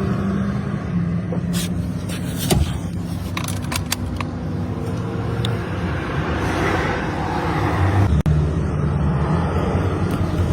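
Car engine running steadily at idle, with a few sharp clicks about two seconds in.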